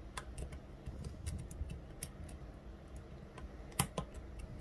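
Lock pick working the pin stacks of an Assa 600 euro cylinder in single-pin picking: faint, irregular small metallic clicks, with one louder click a little under four seconds in.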